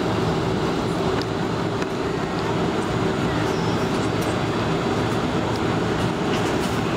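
Boeing 747-400 jet engines running at low power, heard inside the passenger cabin as a steady, even noise with a constant hum, with a few faint clicks and rattles from the cabin.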